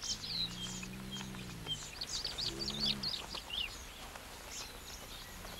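Small birds chirping and twittering throughout, with two low, drawn-out animal calls: a long one lasting nearly two seconds near the start and a shorter one about two and a half seconds in.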